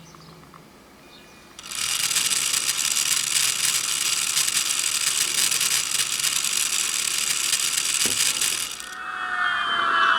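Dense, rapid rattling clatter from a Brawa BR 261 Gravita HO-scale model diesel locomotive. It starts abruptly about a second and a half in and cuts off about nine seconds in, after which a steady whine with a slight drop in pitch begins.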